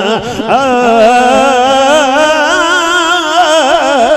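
A man singing one long, unbroken phrase of Punjabi devotional verse, his voice sliding and wavering up and down in pitch in ornamented runs.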